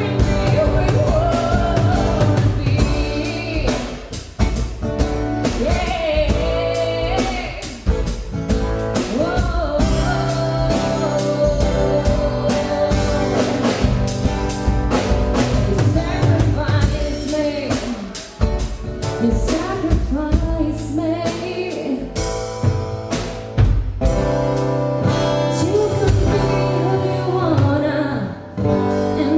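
A band playing a song with a lead singer, drum kit and guitar, loud and steady throughout.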